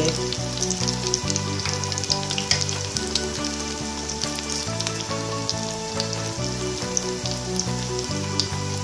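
Soya chaap deep-frying in hot oil in a kadhai: a steady sizzle flecked with many small crackling pops. Background music with sustained low notes plays under it.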